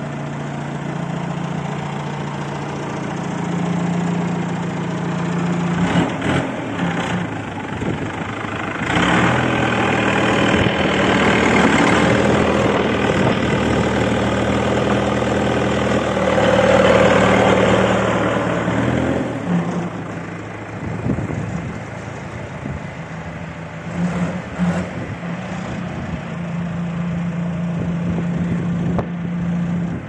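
XCMG XT740 skid steer loader's diesel engine running at a steady idle. It grows louder and fuller for about ten seconds in the middle, then settles back, with a few short knocks along the way.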